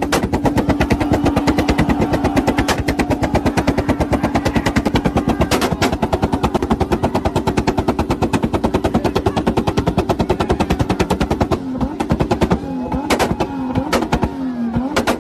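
Exhaust of a tuned Toyota firing a rapid, machine-gun-like string of bangs with flames while the engine is held at a steady high rev on a launch limiter (two-step). About eleven seconds in, the bangs thin out and a wavering, rising-and-falling tone comes in.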